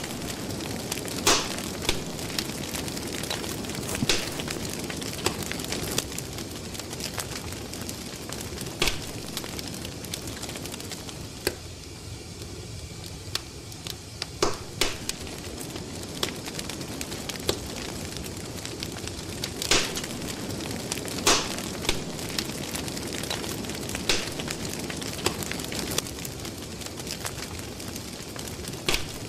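Crackling fire: a steady soft hiss broken by sharp pops at uneven intervals of one to a few seconds.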